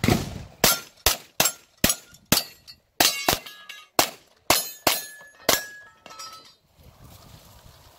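A rapid string of 9mm gunshots, about a dozen or more, each a sharp crack, several followed by the short ring of steel targets being hit. The shooting stops about six seconds in.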